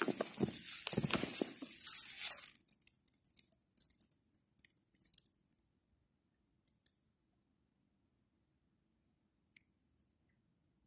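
Close rustling and crinkling handling noise for about two and a half seconds, then near silence with a few faint, scattered clicks and crinkles.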